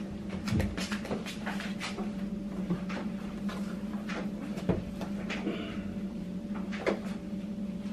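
Clicks, rustling and a few knocks from someone rummaging in a car's back seat through the open rear door, over a steady low hum.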